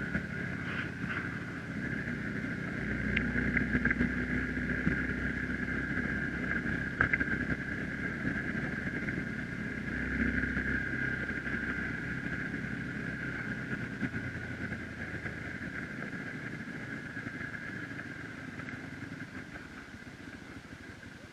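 Hero XPulse 200 4V's single-cylinder engine running as the motorcycle rides a gravel track, with a steady high whine over the engine hum; it eases off and gets quieter over the last several seconds as the bike slows.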